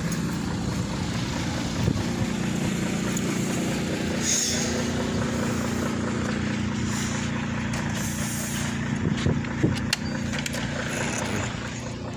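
Large diesel engine running steadily with a constant low hum, with a brief hiss about four seconds in and a few light knocks near the end.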